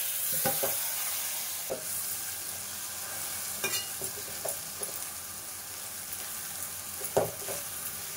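Minced mutton sizzling in hot oil and spices in a metal pot, a steady frying hiss that is loudest as the meat goes in and then eases off, with scattered scrapes and clinks from a metal slotted spatula stirring it.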